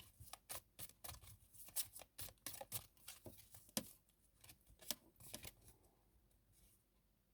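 Tarot cards being handled and shuffled: a run of quick, irregular card snaps and taps that dies away about five and a half seconds in.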